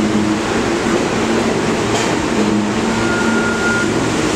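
New York City subway train in the station: a loud, steady rumble and hum of the train's motors and equipment. A brief thin high tone is heard about three seconds in.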